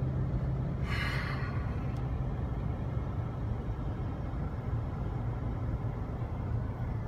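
Steady low rumble of a moving vehicle's engine and tyres heard from inside the cabin, with a brief hiss about a second in.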